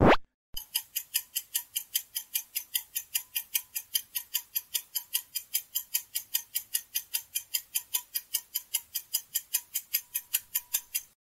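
Clock-ticking sound effect of a quiz countdown timer, an even run of a little over four ticks a second for about ten seconds. It opens with a short, loud, falling pop as the new question comes up.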